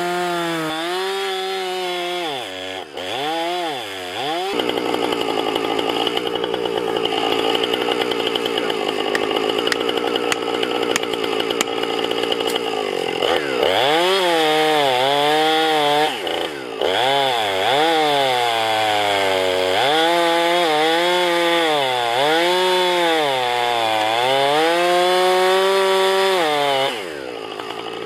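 Gas chainsaw cutting into a maple trunk to fell it. The engine pitch rises and falls as the chain bites into the wood and frees. A stretch of steady full-throttle cutting runs through the middle, and the engine drops back briefly near the end.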